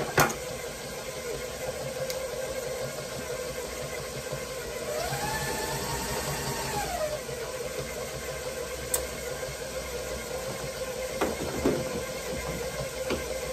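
Electric stand mixer running steadily as it beats a stiff cookie dough of butter, brown sugar and flour. About five seconds in, its pitch rises and falls back over a couple of seconds.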